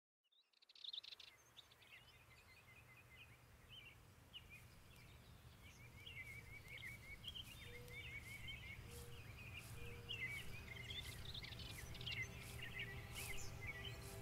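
Woodland birdsong fading in out of silence: many small birds chirping and twittering in quick, short calls over a low, steady outdoor rumble.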